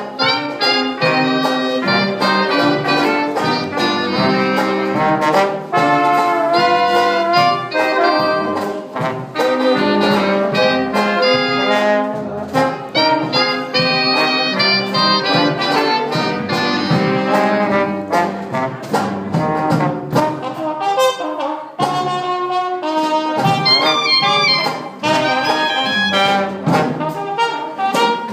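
Dixieland jazz band playing an instrumental number live, with trumpet, trombone, clarinet and saxophone over a drum kit.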